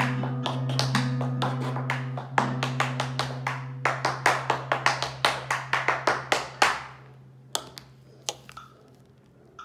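Tap shoes striking a wooden tap board in a quick, rhythmic run of taps over a held acoustic guitar note that slowly fades. The run of taps stops about seven seconds in, and a few single taps follow.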